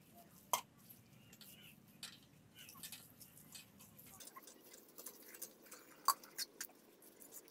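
Wet cement mortar being spread and patted onto the brick roof with a trowel: soft scraping with scattered light clicks, two sharper clicks about half a second in and about six seconds in.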